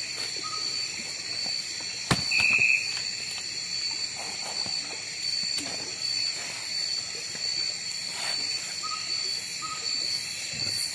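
Night insect chorus: crickets and other insects trilling steadily at several high pitches over a soft hiss, with a single sharp knock about two seconds in and a few brief faint chirps.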